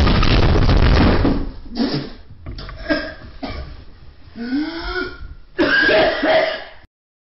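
A ceiling giving way: a loud crash of drywall and insulation coming down, lasting about a second and a half. It is followed by the person who fell through coughing and making strained vocal sounds in the debris, with a loud burst of coughing near the end.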